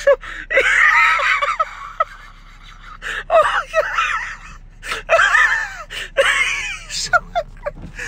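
A person close by laughing hard under their breath: high-pitched, wheezing squeals and gasps for air in short bursts, with a quieter gap about two seconds in.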